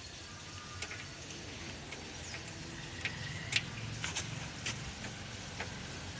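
A handful of scattered small clicks and ticks as a screwdriver turns out the screws holding a car's front grille.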